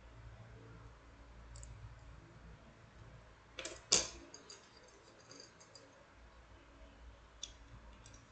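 Metal wire puzzle pieces clicking and clinking as they are handled, with one sharp double click about four seconds in and a few lighter clicks around it.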